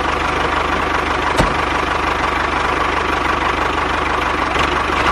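Small engine of a homemade mini tractor running steadily at idle, with a rapid, even pulsing and a single click about one and a half seconds in.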